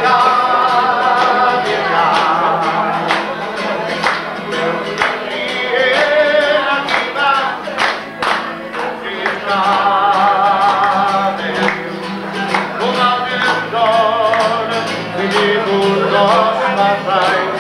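A man singing to his own strummed acoustic guitar, holding long notes with a wide vibrato.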